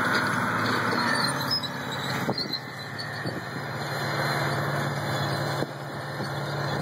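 Large four-wheel-drive articulated farm tractor's diesel engine working steadily under load as it pulls a field cultivator through soil. It grows somewhat quieter about two seconds in as the tractor moves away.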